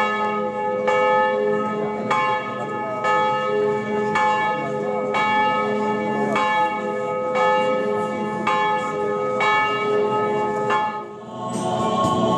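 Large memorial bell tolling in slow, even strokes, about one a second, each stroke ringing on into the next, as a knell for the dead miners. The strokes stop near the end.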